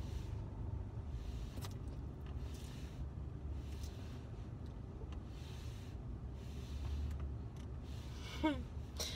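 Steady low rumble of a car idling, heard inside the cabin, with faint rubbing as a metal-cased hard drive is handled right at the microphone. Near the end comes a brief vocal sound that rises and then falls in pitch.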